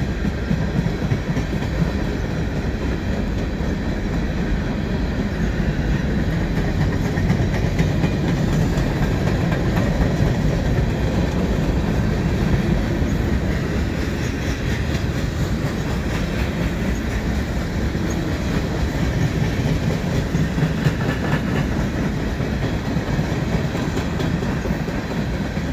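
Freight cars of a slow-moving mixed freight train rolling past: a steady, continuous rumble of steel wheels on the rails.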